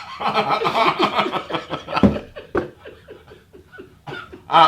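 Hearty laughter: a loud burst for about two seconds that trails off into a run of short, breathy laugh pulses, with another burst near the end.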